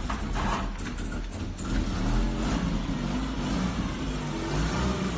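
A car engine running, its pitch wavering up and down a little as it revs.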